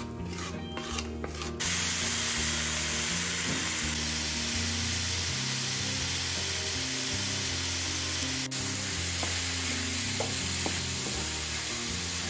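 A wooden spatula scrapes spices across a cast iron skillet, then about a second and a half in a loud, steady sizzle starts as boiled jackfruit fries in hot oil with the spices, with a few small stirring clicks near the end.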